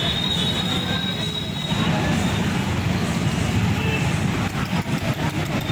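Steady low rumble of road traffic driving through floodwater: motorbike, auto-rickshaw and tractor engines. A thin high whine runs through it for the first couple of seconds.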